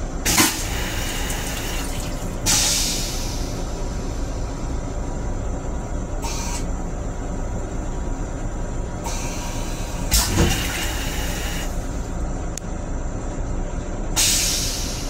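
Metro-North M7 electric railcar in motion, heard from inside its restroom: a steady low rumble with several short hisses of air, the longest about two and a half seconds, starting about nine seconds in.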